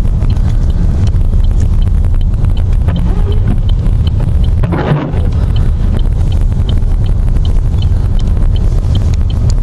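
Vehicle cabin noise while driving on a snow-covered road: a steady low rumble of engine and tyres, with a light regular ticking about twice a second. A brief louder noise comes about halfway through.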